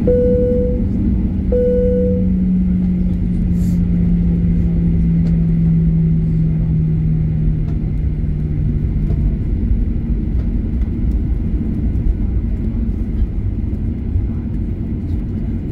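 Steady rumble of a Boeing 737-800 airliner's CFM56 jet engines and cabin. Two short chime tones of the same pitch sound at the very start, and a low engine tone sinks slowly in pitch before fading out about nine seconds in.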